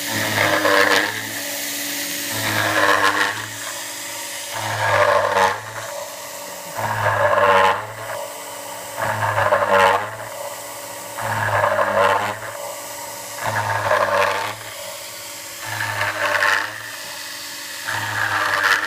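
Scratch-built CNC mill cutting 5 mm aluminium with a 3 mm single-flute up-cut bit at about 8000 RPM: a steady spindle whine, with the cutting noise swelling louder about every two seconds as the bit sweeps into the metal on each toolpath pass.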